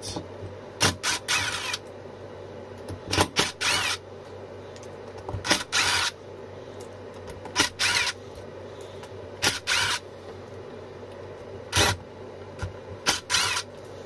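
Cordless power driver with a hex bit, spinning up in short bursts every two seconds or so, its motor pitch rising and falling in each run. It is backing out the six small Allen-head screws that hold the side cover on an e-scooter hub motor.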